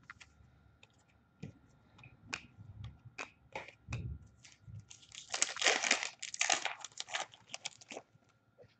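Light clicks and taps of trading cards being handled and set down, then, from about five seconds in, an Upper Deck hockey card pack's wrapper crinkling and tearing open for about three seconds.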